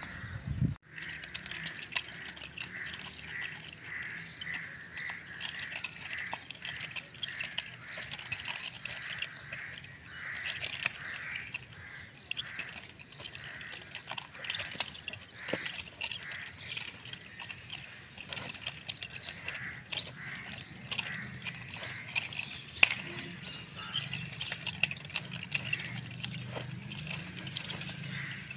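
Birds calling outdoors, a short call repeated about twice a second over the first several seconds, with many scattered sharp clicks.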